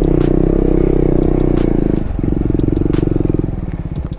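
Motorcycle engine running under throttle. It dips briefly about two seconds in, then drops to lower revs near the end as the throttle eases off.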